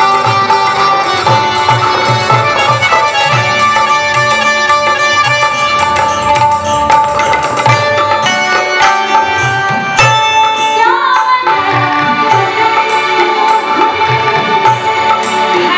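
Maithili folk song performed live: a woman singing over harmonium, with tabla strokes and a plucked string instrument accompanying.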